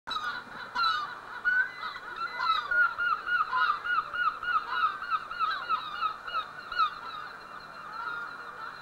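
A flock of birds calling: many short, overlapping calls come several a second, thinning out near the end.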